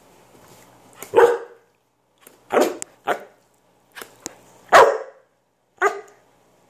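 A dog barking five times, short separate barks spread across the stretch, the fourth the loudest.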